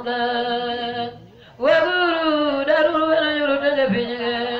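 A man's voice chanting a prayer in long, held notes. It breaks off briefly about a second in, then resumes, and drops in pitch near the end.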